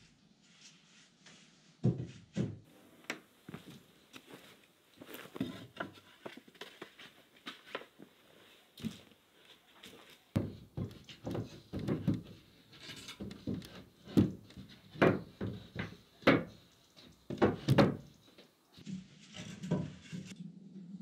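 Wooden bed slats being handled and set down on a wooden bed frame: irregular wooden knocks and thuds, sparse at first, then coming thick and fast for several seconds past the middle.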